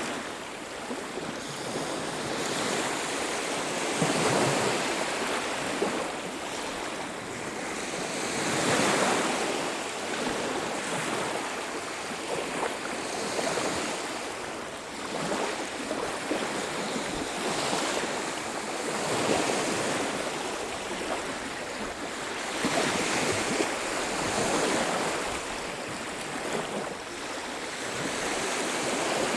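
Ocean surf: waves breaking on a beach, each swelling into a rush of noise and drawing back every four to five seconds.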